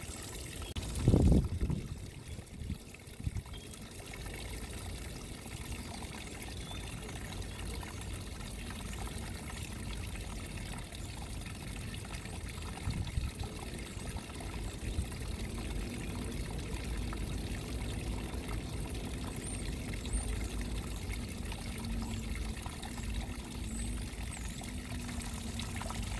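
Small garden waterfall: a thin stream of water trickling off a rock ledge and splashing steadily into a shallow pool. A brief low rumble about a second in.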